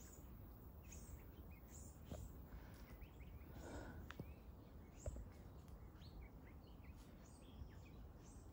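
Near silence outdoors, with faint short bird chirps scattered throughout and a couple of soft clicks around the middle.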